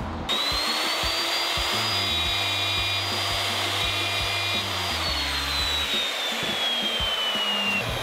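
Handheld plunge router switched on just after the start, running with a steady high whine as it trims a recess in oak. About five seconds in it is switched off and winds down, the whine falling slowly in pitch.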